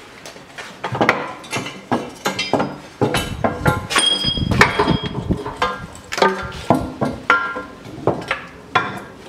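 Old steel exhaust pipes and muffler of a Chevrolet Niva clanking and ringing as they are worked loose and taken down, a run of irregular metal knocks and clinks, busiest a few seconds in.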